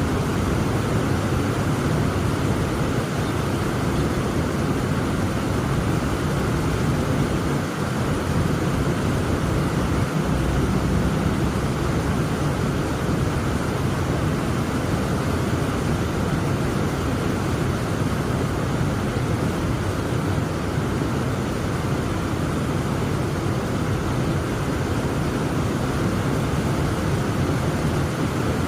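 Heavy rain pouring steadily: a dense, unbroken wash of noise, deepest and strongest in the low range.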